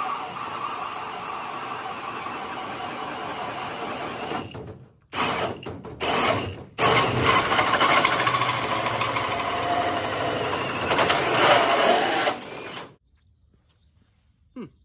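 Drill spinning a 3-3/4 inch hole saw through a steel car hood, cutting the tach hole. It runs steadily, breaks off briefly twice around five and six seconds in, then cuts on until it stops a little before the end.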